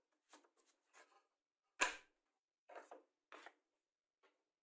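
Small plywood blanks with paper templates glued on being handled on a wooden table: a run of short rubbing and sliding sounds as the paper is smoothed down and the blanks are shifted, with one sharp knock of a blank set down about two seconds in.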